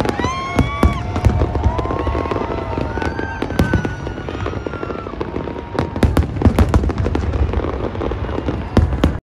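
Fireworks display with dense, rapid bangs and crackling pops, and whistling tones gliding up and down over them. The sound cuts off abruptly near the end.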